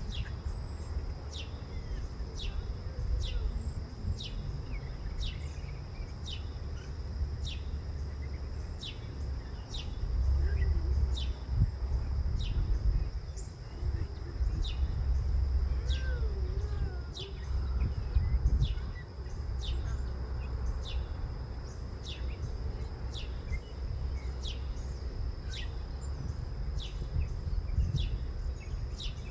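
A bird repeating a short, high chirp that falls in pitch, about once a second, over a steady high-pitched whine and a low rumble.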